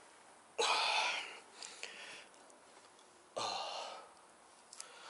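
A man sighing twice, two breathy exhales about three seconds apart, the first the louder.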